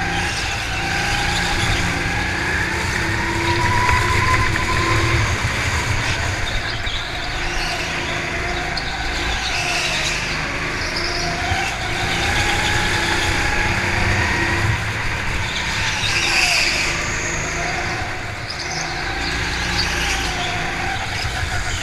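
Go-kart engine running under load as the kart is driven round a track, its pitch rising and falling again and again as it speeds up and slows for the corners.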